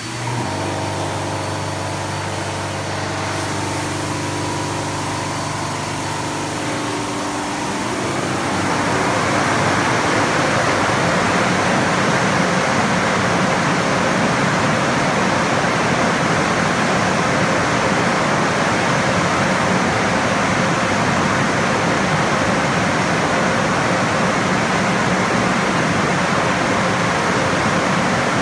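Truck wash air-dryer blowers running: a steady electric motor hum for the first several seconds, then about eight seconds in a louder, even rush of blown air that holds steady.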